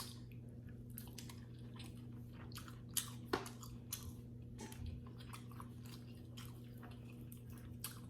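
Close-miked chewing and biting of food: wet mouth clicks and smacks throughout, with a couple of sharper bites about three seconds in.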